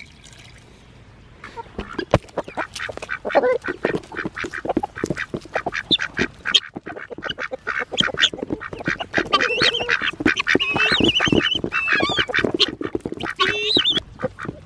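Chickens pecking at a rubber feed pan of milk and scraps, their beaks making many quick sharp taps, with hens calling now and then, most often in the second half. There is a soft pour of milk into the pan at the very start.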